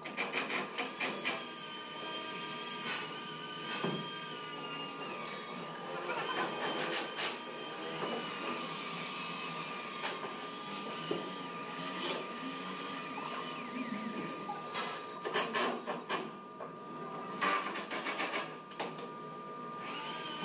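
Workshop assembly noise: scattered knocks and clatter of wood and metal parts being fitted, with a power tool whirring in the first few seconds over a steady high hum. The knocking grows busier near the end.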